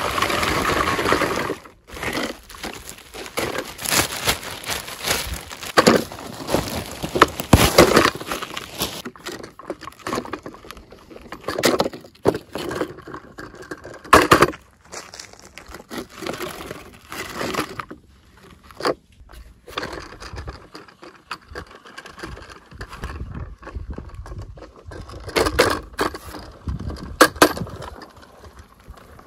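Clear plastic wrapping crinkling and rustling as it is pulled off a large plastic toy tractor, densest in the first several seconds, then sparser rustles and occasional knocks as the plastic toy is handled.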